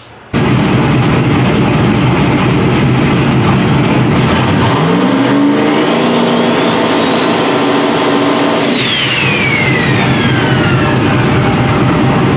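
Turbocharged LS V8 race car engine accelerating hard under a loud, steady engine noise. About five seconds in, its pitch climbs, holds high for a couple of seconds, then falls away near nine seconds.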